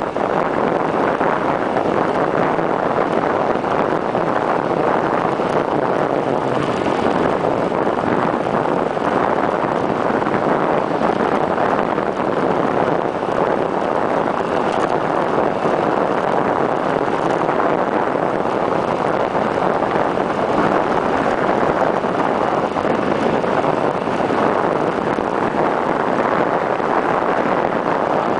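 Steady rush of wind over a camera microphone fixed to a bicycle's stem, on a fast downhill ride.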